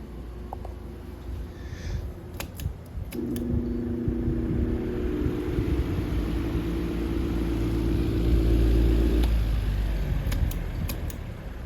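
Vintage Freshnd Aire Model 1400 table fan's electric motor humming, with a few sharp clicks about two and a half seconds in. After the clicks a louder, fuller hum and a low rush of air build to a peak, then ease off after about nine seconds, followed by more clicks near the end.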